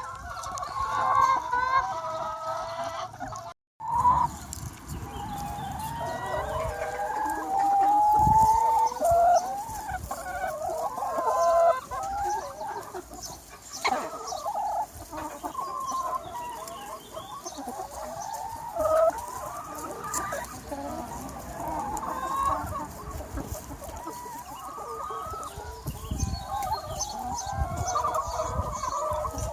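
A large free-range chicken flock clucking and calling continuously, many hens overlapping. The sound drops out briefly about three and a half seconds in.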